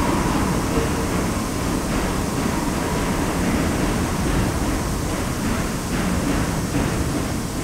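Subway train running through the tunnel, a steady rumble of wheels on rail with a few faint clicks. It begins to fade right at the end.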